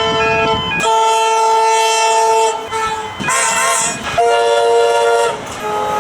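Train air horn sounding a chord of several notes in repeated blasts: one ending just under a second in, a long blast of about two seconds, a short wavering sound around three seconds in, then a blast of about a second and another starting near the end.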